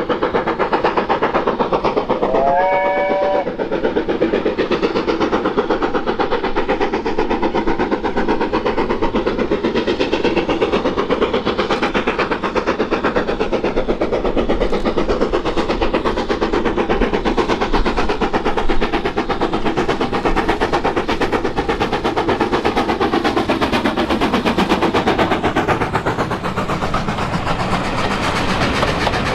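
Steam locomotive on the move with its train. A little over two seconds in it gives a short whistle blast of several notes together, rising in pitch and then holding. After that comes the steady, dense noise of the running train.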